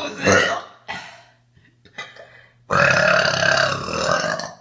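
A young woman burping: the tail of one loud burp at the very start, then, a little under three seconds in, a long, loud burp lasting nearly two seconds.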